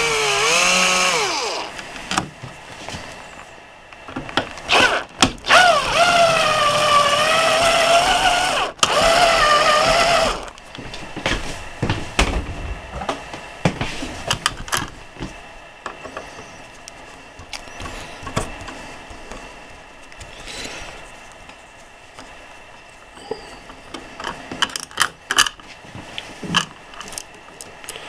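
Cordless electric screwdriver whining as it backs out the mounting screws of a wall light switch: a short run near the start, then a longer run of about five seconds whose pitch wavers under load. Light clicks and rattles of the switch and tools follow.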